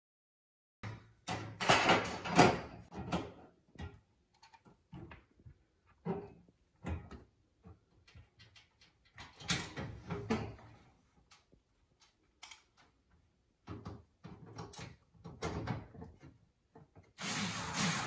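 Irregular knocks, scrapes and rattles of a sheet-metal microwave trim-kit bracket being handled and fitted under a microwave oven. The loudest cluster comes about two seconds in, and another near the end.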